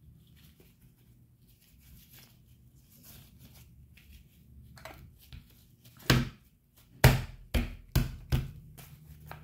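Faint rustling and handling, then five sharp knocks close to the microphone about six to eight and a half seconds in, the first the loudest.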